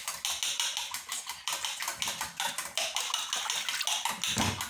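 A fork beating egg in a stainless steel bowl: a quick, even run of metal clicks, several a second.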